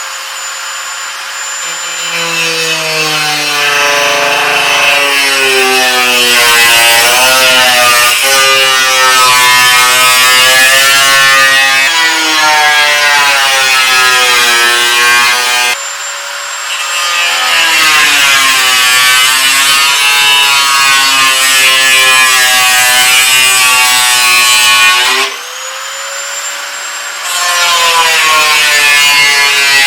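Handheld power cutting tool cutting through a car's sheet-metal fender along a marked line. It spins up with a rising whine, then its pitch wavers as it bites into the metal. It stops about halfway through, then is started up and cuts again twice more.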